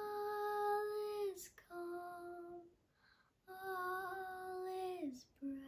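A young girl singing unaccompanied, in four long held notes with short breaths between them, each note sliding down slightly as it ends.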